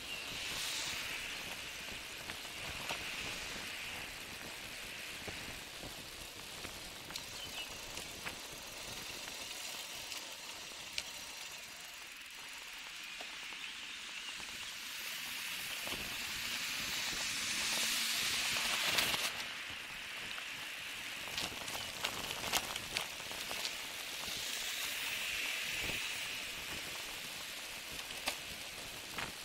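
Steady wind and tyre hiss from riding a bicycle, with traffic swelling past several times. The loudest pass comes about two-thirds of the way in. Scattered light clicks run through it.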